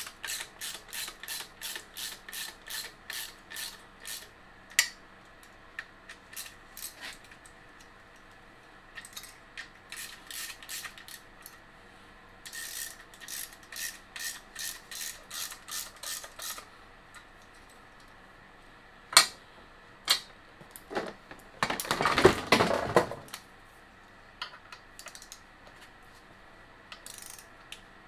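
Ratchet wrench clicking in runs of about three clicks a second as a bolt is turned, with pauses between the runs. A few single sharp metallic clinks and a brief metal clatter come in the second half.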